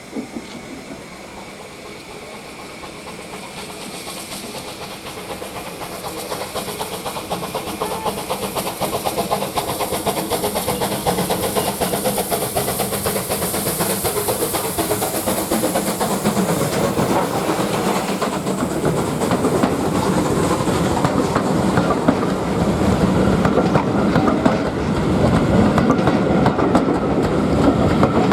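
Steam train approaching and growing steadily louder, with a hiss and the clatter of its wheels over the rail joints.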